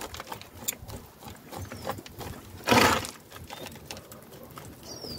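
Metal bonsai root hook scratching and scraping loose potting soil off a hornbeam's root ball: a run of small scratchy rasps, with one louder scrape near the middle.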